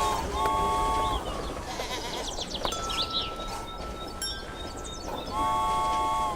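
Animated toy train whistle sounding two toots, a short one then a longer one, near the start and again near the end. In between are fainter high chirping sound effects and a thin steady tone.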